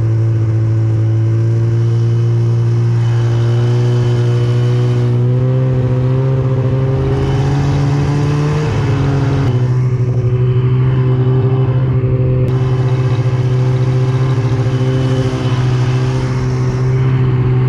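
Arctic Cat M8 mountain snowmobile's 800 two-stroke twin running under load while towing a tube, its pitch climbing slowly and then dropping about nine seconds in before holding steady.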